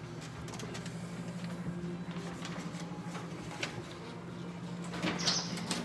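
Footsteps on a hardwood floor over a steady low hum, with a brief scraping sound about five seconds in.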